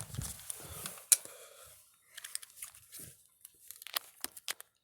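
Handling noise as a twist-tied AC adapter cord and its plastic packaging are worked loose: crinkling and rustling, a sharp click about a second in, then scattered small clicks.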